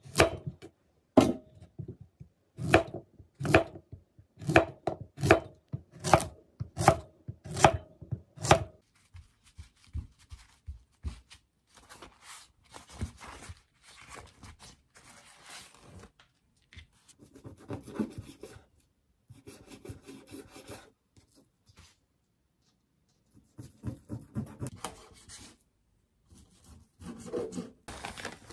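Kitchen knife slicing through a zucchini onto a wooden cutting board: about ten sharp chops, a little under one a second, over the first nine seconds. After that, softer rustling and rubbing of a paper towel being pressed onto raw salmon fillets, with more paper or packaging rustle near the end.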